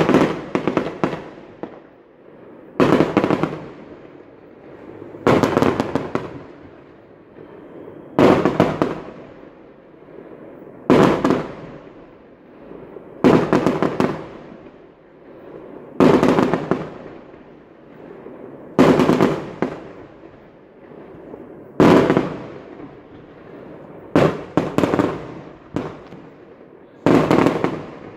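Aerial fireworks bursting, a sharp bang about every two and a half to three seconds, each one trailing off in crackling. Near the end three shells go off in quick succession.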